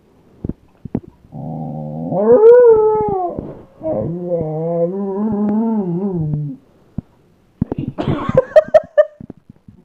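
Dog howling back in a complaining "talking" way. A low grumble rises into a howl about two seconds in, followed by a long wavering moan. A few short yips come near the end.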